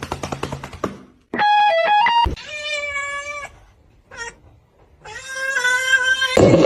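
A cat meowing: two long, drawn-out meows with a short one between them. They come after a rapid run of clicks and a quick series of stepped musical notes.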